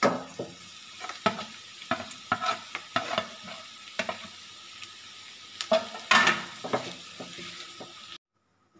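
Steel slotted spatula stirring flattened rice into fried potatoes in a kadai: irregular scrapes and clinks against the pan over a faint steady sizzle. The sound cuts off abruptly near the end.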